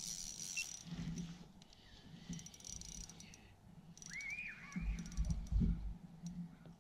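Spinning reel being cranked on a fishing rod, giving runs of fine ticking clicks. A short high chirp comes about four seconds in, and dull knocks of the rod and camera being handled come near the end.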